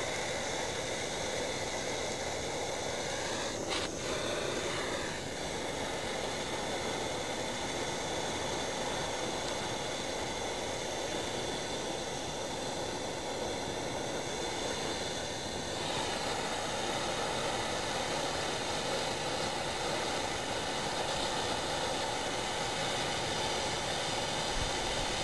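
Hand-held gas torch flame burning with a steady hiss as it heats copper pipe fittings for sweat-soldering. A short click about four seconds in.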